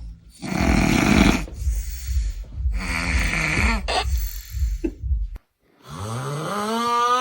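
A sleeping person snoring: two noisy snores about two seconds apart over a low fluttering rattle, then, after a brief pause, a long pitched groaning snore that rises in pitch near the end.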